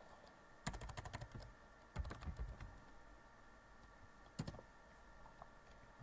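Faint computer keyboard typing: a quick run of key clicks about a second in, a shorter run at about two seconds, and a single key press near the end.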